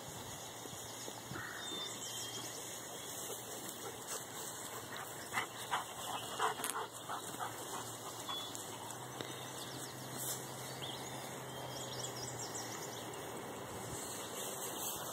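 A dog giving a few short barks about halfway through.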